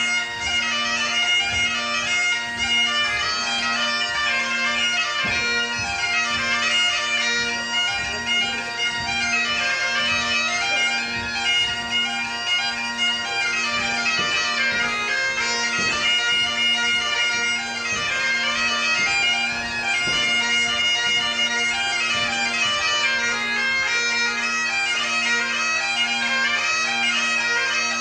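Great Highland bagpipe playing a dance tune, the melody moving above its steady drones.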